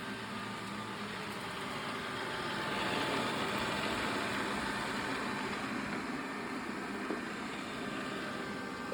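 Xiaomi S20 robot vacuum running while vacuuming and mopping: a steady fan whine with brush and wheel noise, swelling louder for a couple of seconds about a third of the way in.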